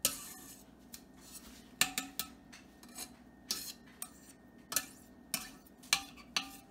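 A spatula tapping and scraping against the sides and rim of an enamel soup pot while cream cheese is worked off it into the soup. It gives about ten sharp, irregular knocks, each a second or less apart.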